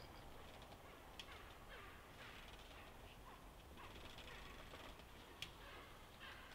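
Faint forest birds calling: scattered short, falling chirps. Two soft clicks stand out, about a second in and about five seconds in.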